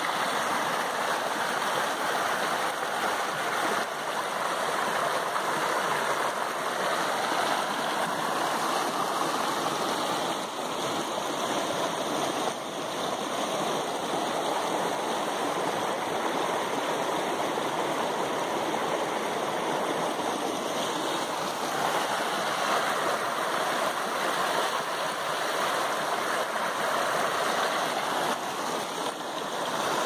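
Shallow rocky stream running steadily, its water rushing and splashing over stones in small rapids.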